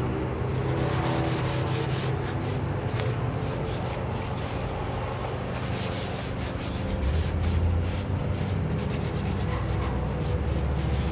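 Cloth rubbing back and forth over a rubber car floor mat in quick wiping strokes as the mat is cleaned.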